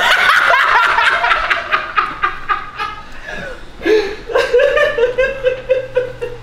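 Men laughing hard: a loud fit of rapid ha-ha laughter that eases off about three seconds in and breaks out again about a second later.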